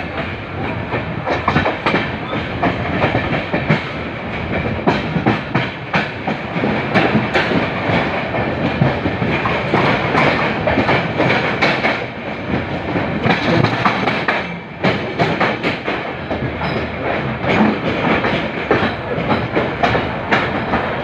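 Indian Railways passenger train running, its wheels clattering over rail joints and junction points in a dense stream of clicks over a steady running rumble, heard from aboard the coach.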